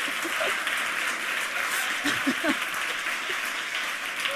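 Audience applauding, a dense steady clatter of many hands clapping, with a few voices calling out about two seconds in.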